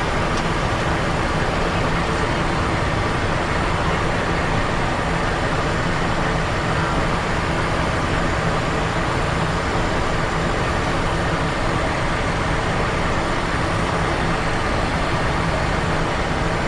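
Steady cockpit drone of a Cessna Citation XLS in flight on approach: twin turbofan engines and airflow making an even rushing noise with a faint constant hum, unchanging throughout.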